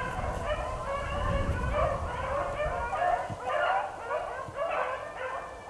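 A pack of beagles baying in chase, many overlapping yelping cries repeating throughout: the hounds are running a rabbit on its scent.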